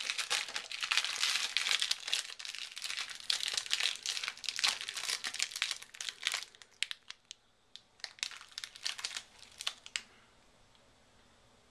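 Clear plastic film being crumpled and crinkled in a hand. The crackling is dense for about the first six seconds, then thins to scattered crackles and stops near the end.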